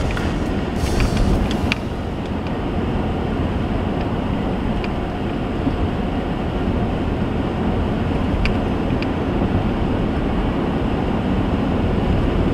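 Steady engine and road noise inside the cabin of a moving vehicle, with a few faint clicks about a second in and again around eight and a half seconds.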